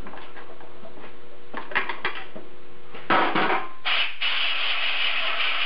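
Hand work on an aluminium intercooler pipe: a few light clicks from a screwdriver on the bracket bolt, then a knock about three seconds in. The knock is followed by a loud, steady rubbing noise as hands grip and shake the pipe to test its mounting.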